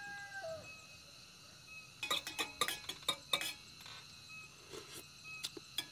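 Spoon clinking against the inside of a small cup while stirring honey into tea. There is a quick run of clinks about two seconds in, then a few more near the end.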